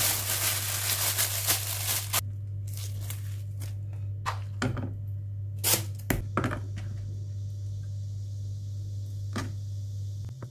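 Thin plastic bag crinkling and rustling as a block of tofu is unwrapped, for about the first two seconds, then scattered knocks and taps on a plastic cutting board as the tofu is handled and cut with a knife. A steady low hum runs underneath.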